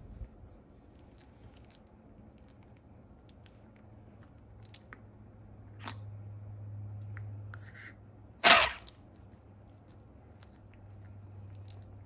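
A long-haired chihuahua sneezes once: a single short, loud, sharp burst about eight and a half seconds in. Faint small clicks come and go before it, over a low steady hum.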